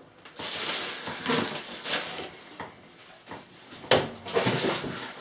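Plastic wrap crinkling and rustling as plastic-wrapped cookware is handled in its cardboard box, with a sharp knock about four seconds in.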